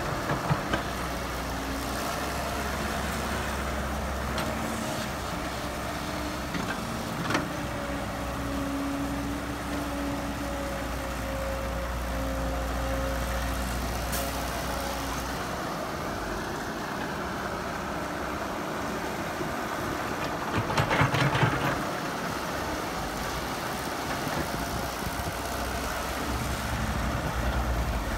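Caterpillar E120B hydraulic excavator running, its diesel engine steady with a hydraulic whine that shifts slowly in pitch as the boom and bucket move. A few knocks near the start and a brief louder rattle about three quarters of the way through.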